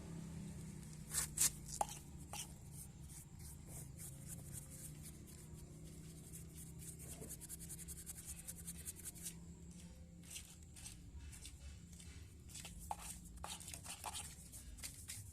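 Scratchy rubbing and scrubbing with scattered short clicks, from hands working over a scooter's engine to clean off crust, over a steady low hum.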